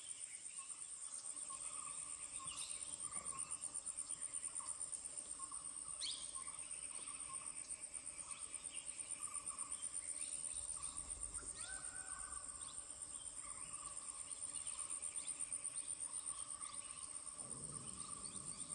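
Insects trilling steadily in a high, rapidly pulsing drone, with scattered short chirps underneath.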